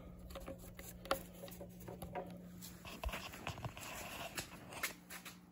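Faint handling noise: small scattered clicks and rubbing as a hand works the rubber dust cap of a 12-volt charging socket on a plywood box, over a faint steady low hum.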